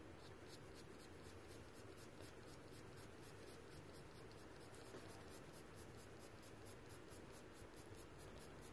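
Faint scratching of a sharpened charcoal pencil shading on drawing paper, in short quick strokes about five a second.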